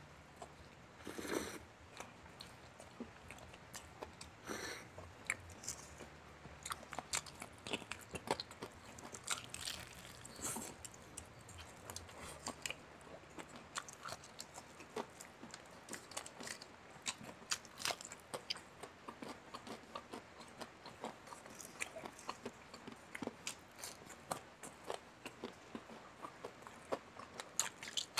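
Close-miked biting and chewing of crispy fried chicken: many sharp crunches and wet mouth clicks, with a few louder bites scattered through.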